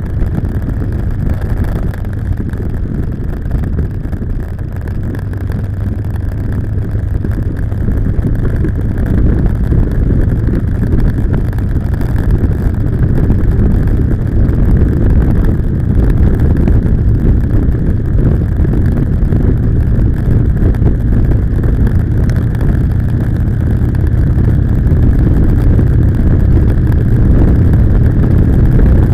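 Motorcycle engine running steadily at road speed, mixed with wind rushing over the bike-mounted camera's microphone; the rumble grows a little louder after the first several seconds.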